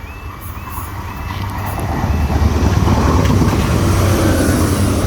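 A train approaching and running through the level crossing: a rumble that grows louder over the first two seconds, then holds steady and loud. The crossing's repeating warbling alarm tone sounds briefly at the start.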